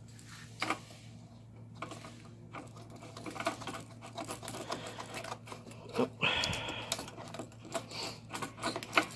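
Small metal clicks and rattles of air-hose quick-connect couplers and fittings being handled, with a short burst of rushing noise about six seconds in.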